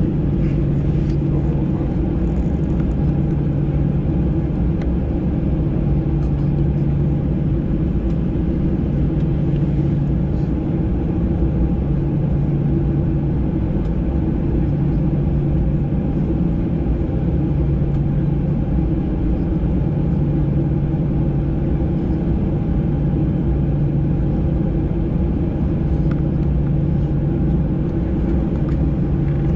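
Cabin noise of a Boeing 737-800 on the ground with its CFM56 engines at idle: a steady rumble and hum, with a low drone that swells and fades every two to three seconds.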